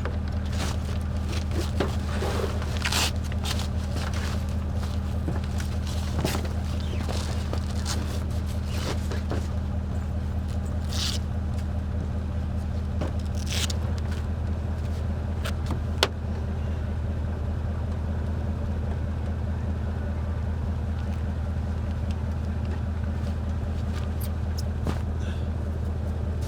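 A vehicle engine idling steadily, with scattered clicks, knocks and scrapes from a rooftop tent being unfolded and set up.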